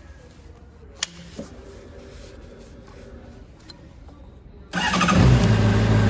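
A sharp click about a second in, then the Honda CBR600RR's inline-four engine, fitted with a Moriwaki silencer, is started with the electric starter near the end. It fires suddenly and settles straight into a steady idle.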